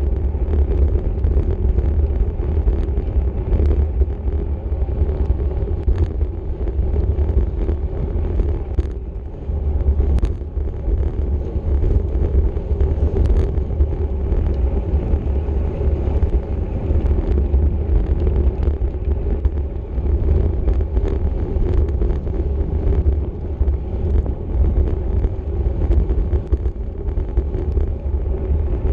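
Wind rushing over a bike racer's camera microphone at racing speed: a steady, heavy low rumble, with a few short sharp clicks along the way.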